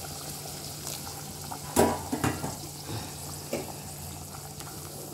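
Hot water poured from a steel bowl into a pot of mutton cooking in oil, splashing and bubbling. A sharp knock about two seconds in, with a few lighter knocks after it.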